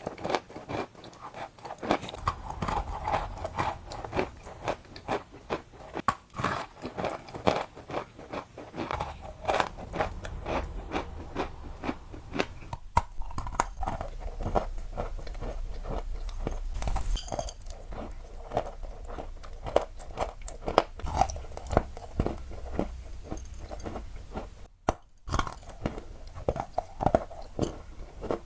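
Crunchy balls being crunched: many crisp crunches and crackles in quick, irregular succession.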